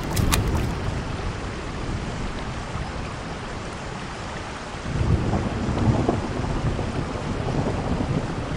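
Rain falling on a wet concrete rooftop, an even hiss under a deep rumbling that grows louder about five seconds in.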